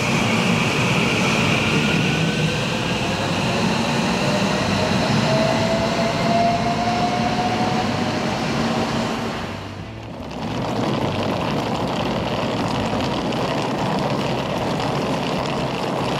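Electric commuter train pulling out of a station: its motor whine rises in pitch as it accelerates, over the steady rumble of wheels on the rails. The sound dips briefly about ten seconds in, then the steady rumble goes on.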